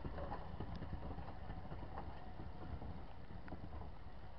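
Railway passenger coaches rolling slowly past, a low rumble of the wheels on the track with irregular clicks and knocks as the wheels cross rail joints.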